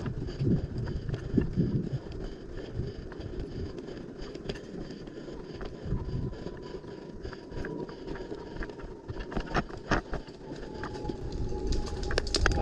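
Rustling movement and gear noise from a player on the move, with a faint thin whine in the second half and a few sharp clicks about ten seconds in and near the end.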